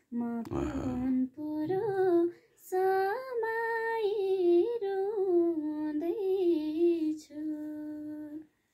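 A woman singing a song solo and unaccompanied, in flowing phrases with short breaks for breath. She ends on a long held note near the end. Her voice is slightly changed, which the host puts down to a cold.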